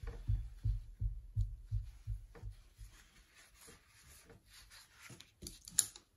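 Oil-painting brush dabbing and scrubbing paint onto a panel clipped to a palette box. A run of soft low thumps, about three or four a second, gives way to lighter scattered scrapes and taps, with one sharper tap near the end.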